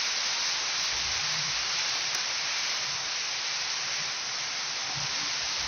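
Heavy rain pouring down: a steady, even hiss of a torrential downpour.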